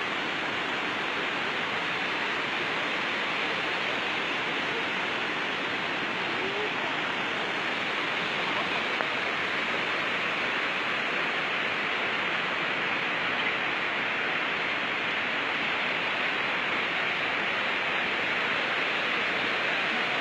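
Mountain river rushing over rocks and small cascades: a steady, unbroken rush of water.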